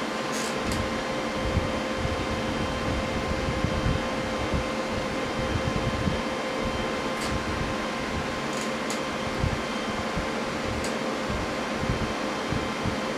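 Small electric fan running steadily: an even whir with a faint constant hum, with a few faint ticks.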